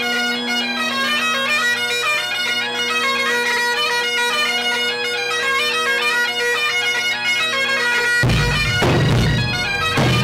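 Bagpipes playing a quick melody over their steady drones. Near the end a large rope-tensioned drum comes in with heavy beats.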